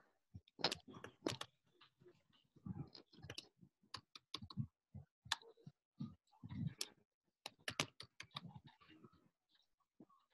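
Typing on a computer keyboard, fairly quiet: uneven runs of key clicks broken by short pauses.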